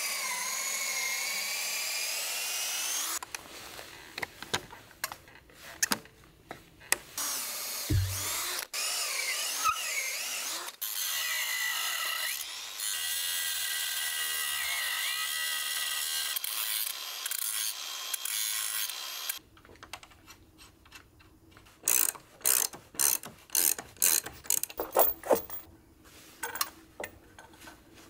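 A power drill boring into timber in two long runs, its motor pitch wavering under load, with knocks and handling noises between. Near the end, a ratchet is cranked in about ten quick strokes, roughly two a second.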